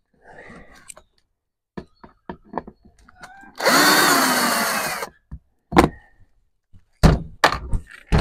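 Power drill-driver running in one burst of about a second and a half, backing a screw out of the plastic side panel of an MXR3500 inverter generator, followed by a few sharp knocks.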